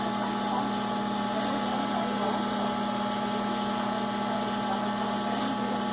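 LG MS3042RA microwave oven running a 30-second heating cycle: a steady electrical hum that holds level throughout. The oven is heating normally on its repaired control board.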